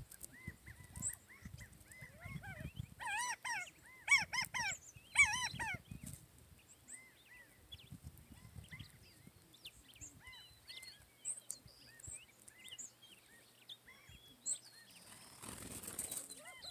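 Quail calling: a run of repeated arched call notes about three to six seconds in, with scattered short chirps of small birds around them. Near the end comes a brief rushing noise.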